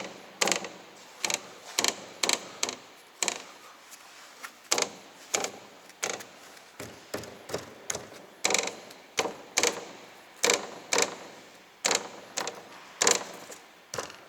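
Sharp metallic clicks and knocks, irregular at about one or two a second, as the front suspension and anti-roll bar links of a Skoda Octavia A7 are rocked back and forth by hand to find the source of a dull knock.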